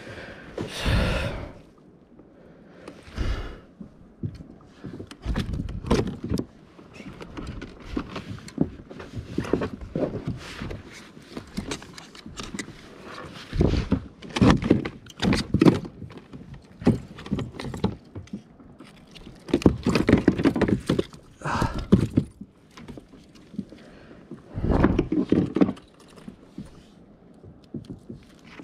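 Irregular thunks and knocks against a kayak and its gear, with short bursts of handling noise, while a large flathead (magochi) is brought in and landed.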